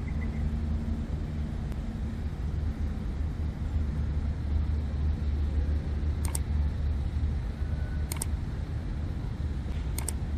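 Steady low rumble of city traffic, with a few short, high clicks about six and eight seconds in and again near the end.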